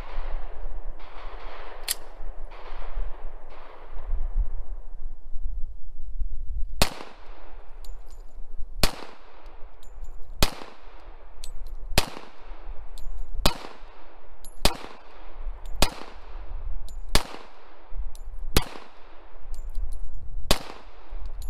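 Springfield XD(M) .45 ACP semi-automatic pistol fired in slow single shots: about ten sharp bangs, one to two seconds apart, starting about seven seconds in, each trailing off in echo. A few duller bangs come in the first few seconds.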